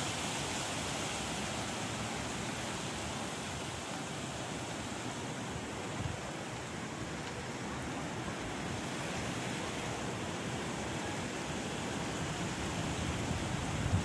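Wind blowing through palm fronds: a steady, even rushing hiss.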